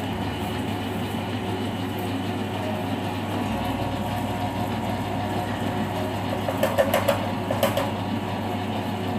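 Commercial stand dough mixer running steadily, its motor humming as the beater churns stiff cookie dough. A short burst of rattling clicks comes about seven seconds in.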